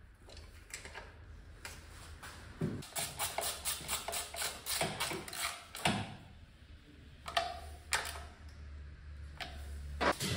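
Metal hand tools clicking and knocking during scooter transmission work, with a quick run of clicks in the middle and a few single knocks later, over a steady low hum.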